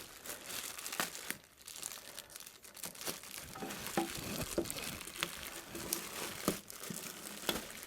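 Plastic packaging bag crinkling and rustling as a rack-mount unit is worked out of it, with scattered sharp crackles and small squeaks as it snags on packing tape.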